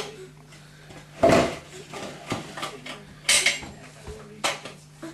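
Hard objects clattering and knocking as a toddler handles a pulled-out drawer and its contents: two louder clatters, one about a second in and one past three seconds, with lighter knocks between. A steady low hum runs underneath.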